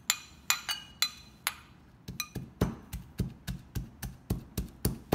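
A metal spoon clinks against a glass bowl a few times as chopped aromatics are scraped out. Then, from about two seconds in, a wooden pestle pounds garlic, galangal and lemongrass in a mortar in a steady rhythm of about four thuds a second.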